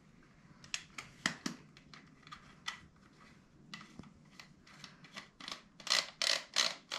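Short clicks and scrapes of gun parts being handled while a Remington 870 pump shotgun is put back together, as the magazine tube's end cap is screwed on. The clicks come thicker and louder over the last second or so.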